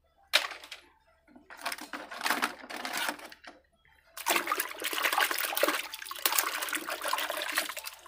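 Hand sloshing and splashing in a basin of soapy water: a short splash, a few more over the next couple of seconds, then about four seconds of steady swishing as the water is stirred.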